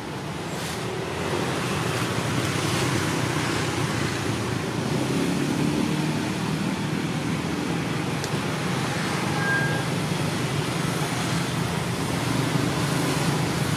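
Steady low rumble of road traffic, a little louder from about a second in.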